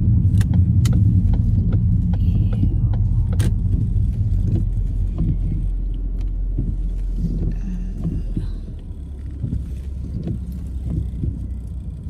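Car driving on a wet road, heard from inside the cabin: a steady low engine and tyre rumble that drops noticeably about two-thirds of the way through. A few sharp clicks come in the first few seconds.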